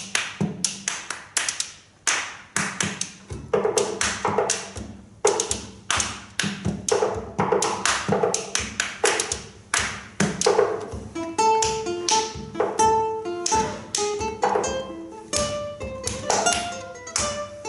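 Two classical guitars and a double bass played as percussion: hands tapping and slapping the instrument bodies in a quick tango rhythm. Low bass notes come in a few seconds in, and plucked guitar notes join about eleven seconds in.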